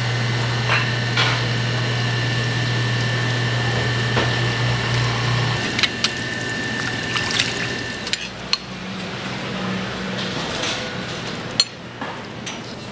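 Fish knife tapping, clicking and scraping against a wooden cutting board as a milkfish is filleted, with a few sharp metal clinks. A steady low machine hum runs underneath and stops about halfway through.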